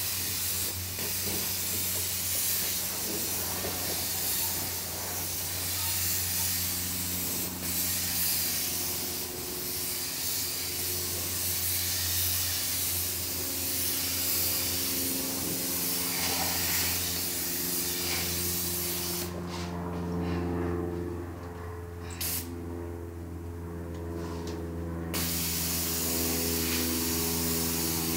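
Paint spray gun hissing steadily as paint is sprayed onto the wall, over a steady low motor hum. About two-thirds of the way through, the spraying stops for several seconds, apart from one short burst, then starts again.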